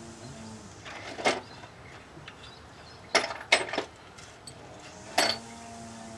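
A handful of sharp metallic clinks and knocks, one about a second in, three in quick succession around the middle and one near the end: tools and bolts being picked up and set down while working on an engine bay.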